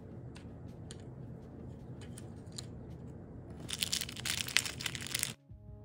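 Faint small clicks of tiny plastic miniature pieces being handled, then a couple of seconds of loud crinkling of a thin clear plastic bag as hands dig into it. The crinkling cuts off suddenly near the end and music begins.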